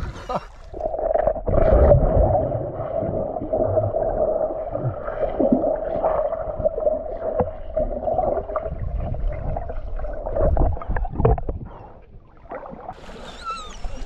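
Muffled water sound picked up by a camera held underwater while swimming: gurgling and sloshing with a steady hum and knocks of water against the housing. Near the end the camera comes back above the surface and splashing is heard.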